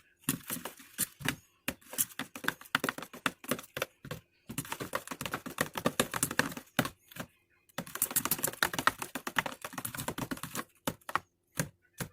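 A utensil clicking rapidly against a bowl while stirring a hand soap and water mixture, in long runs of fast ticks broken by short pauses.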